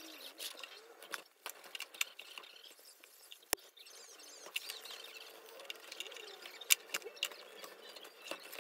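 Leather straps scraping and rustling as they are pulled through slits in a woven leather bag, with scattered light clicks and taps, one sharp click about three and a half seconds in and a louder tap a few seconds later.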